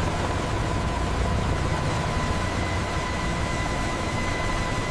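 V-22 Osprey tiltrotor's engines and prop-rotors running steadily: an even rush with a low rumble underneath and a thin, high, steady whine.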